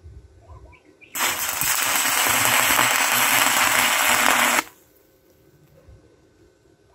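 Stick-welding arc crackling and sizzling as the electrode burns against the metal, starting abruptly about a second in and cutting off suddenly after about three and a half seconds.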